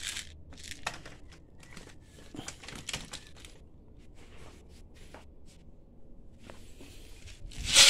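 Plastic packaging crinkling and rustling with scattered light clicks as wrapped items are handled, then a short, loud rush of noise near the end.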